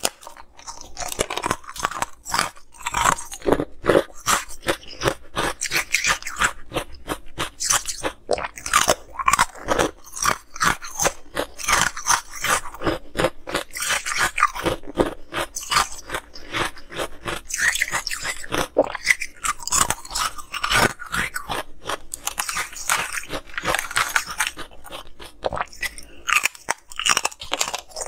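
Ice discs being bitten and chewed, with crisp, dense crunching and crackling that keeps going without a break.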